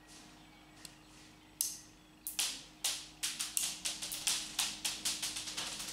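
Small Lego plastic pieces clicking as they are pulled off and pressed onto the model: a string of sharp clicks starting about a second and a half in and coming quicker toward the end, over a faint steady hum.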